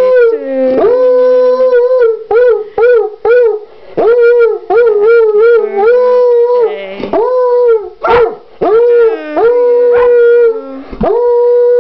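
Coonhound howling in a string of 'singing' notes. Some are long and held, others are short yowls that bend up and down in pitch, with one sharp high cry about eight seconds in.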